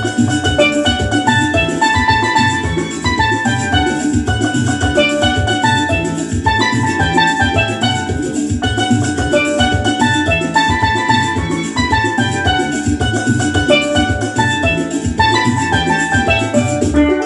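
Two steelpans playing a lively melody together, quick struck notes over a steady beat of drums and bass.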